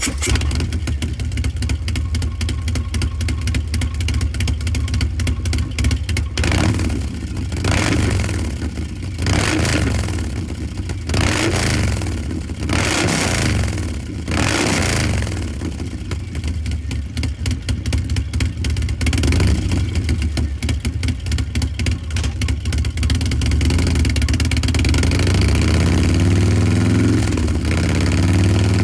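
2019 Harley-Davidson Road Glide Special's Milwaukee-Eight V-twin, with an S&S 475 cam and a Two Brothers Racing Shorty 2-into-1 exhaust, idling just after starting, then revved in about five quick throttle blips around a quarter of the way in. A longer rev follows about two-thirds of the way in, and near the end the engine speed slowly rises.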